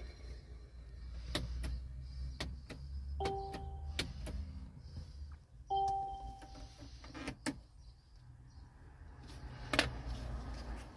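Mercedes cabin electronics: a string of sharp clicks and two electronic chimes, a short one about three seconds in and a longer, fading one near six seconds, over a low hum, as the car fails to start from its push-start switch.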